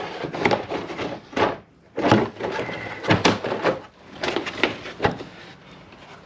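Plastic wheel-arch liner being pushed and worked back into place by hand: a run of irregular scrapes, rustles and knocks.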